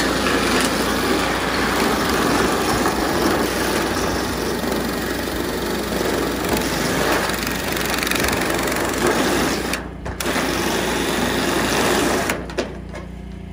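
DeWalt cordless drill driving a tin-cutter attachment, shearing a long straight cut through corrugated steel roofing sheet: a steady loud cutting noise that breaks off briefly about ten seconds in, then stops about twelve seconds in.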